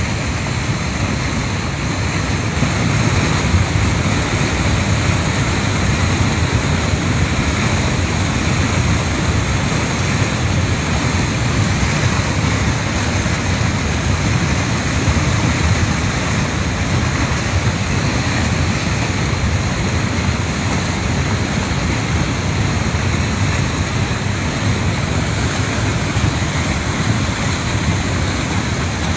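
Muddy flash-flood water rushing down a rocky channel, a steady, unbroken wash of noise.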